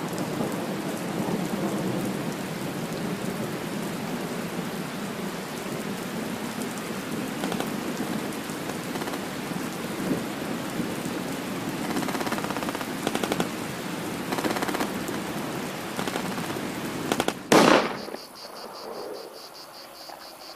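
Steady heavy rain, then a single sudden loud crack near the end, after which the rain stops and crickets chirp.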